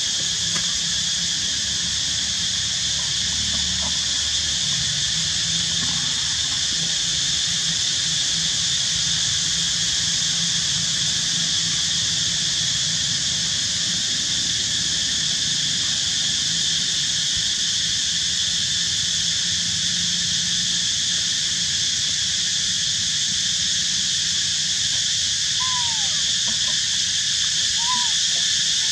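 Steady insect chorus in the forest, a constant shrill drone that does not change. Near the end, two short rising-and-falling calls sound over it.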